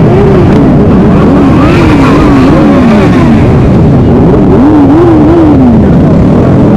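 Loud motorcycle engine running, its pitch climbing and dropping again and again as the throttle opens and closes.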